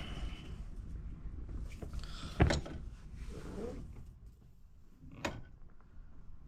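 Hand tools clanking and scraping on steering column parts while the column spring is pressed down with a crescent wrench. There is one sharp metal knock about two and a half seconds in and a lighter click about five seconds in.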